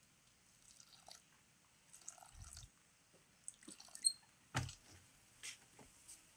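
Metal spoon mixing water into flour in an aluminium bowl: faint wet squishing and scattered light clicks, with a sharper knock about four and a half seconds in.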